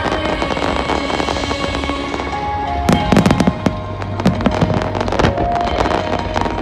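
Fireworks going off with music playing: a quick cluster of sharp bangs and crackles about three seconds in, followed by scattered pops.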